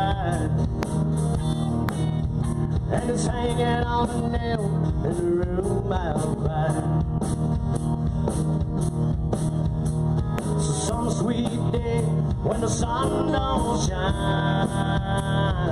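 Live band playing an instrumental passage: a lead guitar line with pitches that bend up and down, over bass and a steady drum beat.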